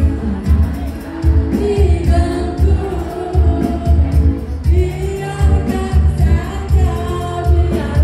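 Pop song with a singer over a steady bass beat, about two beats a second.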